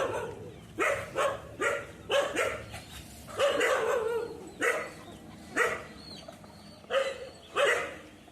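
Dog barking, a run of short barks roughly one or two a second with uneven gaps.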